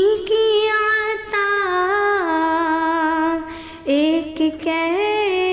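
A female voice singing an Urdu naat unaccompanied, holding long notes that slide from pitch to pitch, with a short breath about three and a half seconds in.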